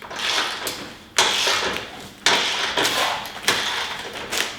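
Long-handled socket ratchet being worked in four strokes about a second apart, each a short burst of clicking as it tightens a nylon lock nut on a wheel bolt.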